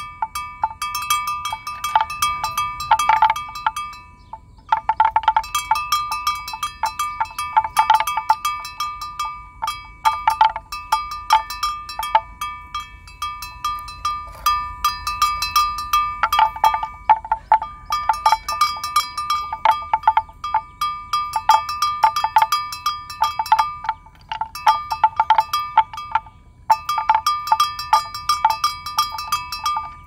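Bells worn by grazing water buffaloes, clanking irregularly as the animals feed and move, in uneven runs with brief lulls.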